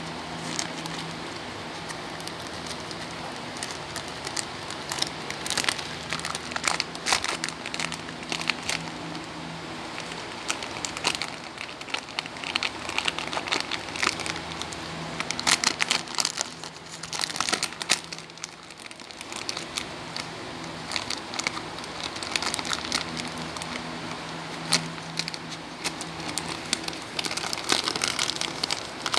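A Shih Tzu chewing and tugging at a yellow plastic snack packet, the wrapper crinkling and crackling in irregular bursts, briefly quieter about two-thirds of the way through.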